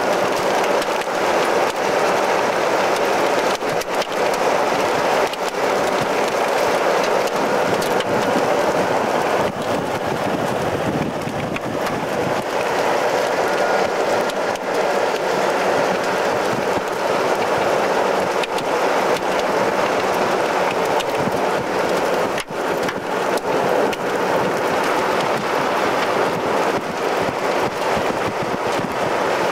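Steady road and wind noise of a car driving along a rural road, with a few faint clicks and knocks.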